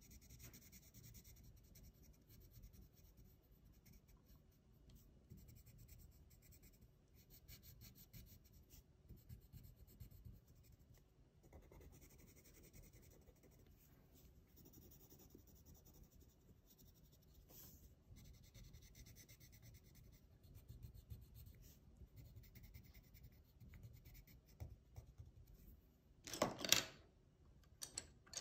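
Faint scratching of a coloured pencil shading on paper, in bursts of quick back-and-forth strokes. A brief, louder scrape near the end.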